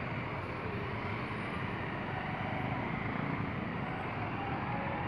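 Steady engine noise of slow, congested street traffic, with cars, a bus and motorcycles idling and creeping, and a low engine hum close by.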